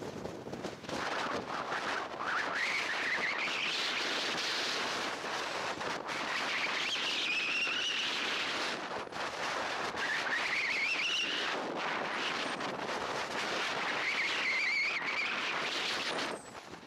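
Strong wind rushing on the microphone, with a whistle from the PCM Erwin 5 radio-controlled glider that rises in pitch and then holds, about five times, as the glider picks up speed in its passes.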